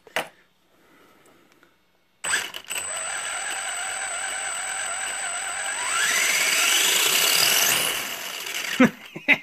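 Electric motor and gear drivetrain of a Traxxas Bandit RC buggy running with a steady high whine. It starts suddenly about two seconds in, rises in pitch and gets louder as the throttle is opened around six seconds in, and eases off near the end.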